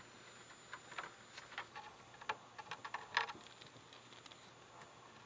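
Scattered light clicks and taps at an uneven pace, from a plastic cup of epoxy and small tools being handled. The loudest click comes about three seconds in.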